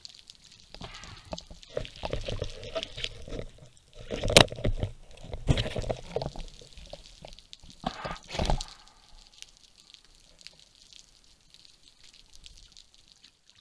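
Underwater sound through a diver's camera: irregular knocks, clicks and scraping with water rumble as a speared grouper is grabbed and handled, the sharpest knock about four seconds in. The sounds thin out after about nine seconds, leaving a faint steady hiss.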